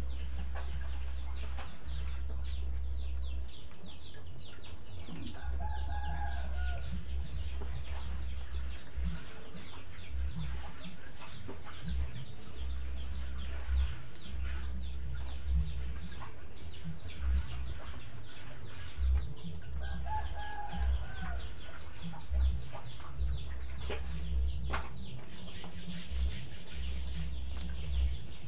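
Chickens clucking, with a drawn-out call about six seconds in and another about twenty seconds in. Under them run repeated sharp taps of a knife on a wooden board as meat is sliced, over a low rumble that comes and goes.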